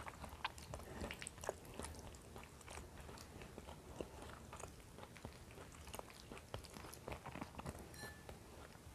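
Faint, close-miked eating by hand: chewing and mouth sounds, with many small scattered clicks as fingers pick flesh off a fried fish.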